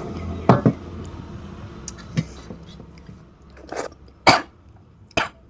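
A person coughing in short bursts: a quick double cough near the start, then three more single coughs in the second half.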